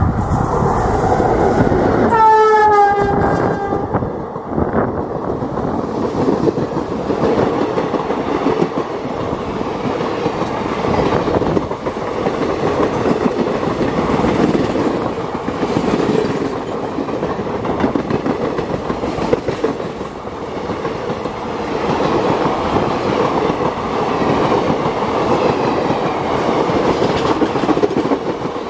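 WDM3A diesel locomotive passing at speed: about two seconds in, its horn sounds for roughly two seconds, the pitch dropping slightly as it goes by. Then the passenger coaches run past with a steady rumble and a rhythmic clickety-clack of wheels over rail joints.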